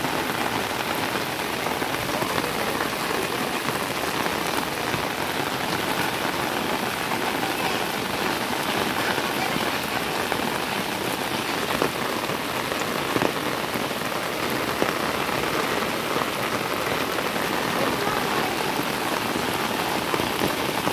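Heavy rain falling steadily onto a flooded street: an even hiss of drops striking standing water, with a few louder taps around the middle.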